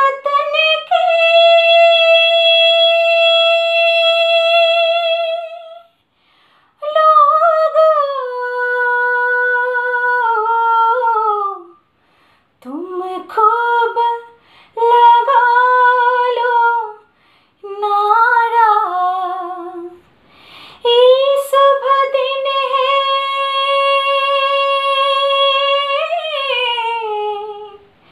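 A woman singing unaccompanied in long held notes, sliding between pitches with vibrato, in phrases of a few seconds with short silences between them.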